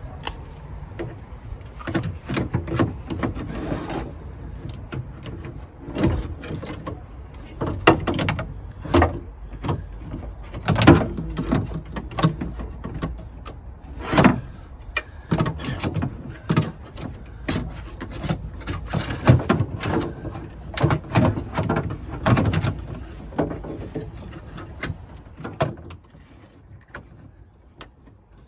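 Irregular clicks, knocks and rattles of small plastic and metal parts being handled and fitted back into a Land Rover Freelander 2 rear door: the handle, grommet, screw and bolt of the door lock assembly going back together. It goes quieter near the end.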